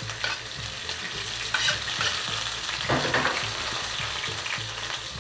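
Chopped onion frying in hot oil in a frying pan: a steady sizzle full of small crackles, with the scraping and knocking of stirring.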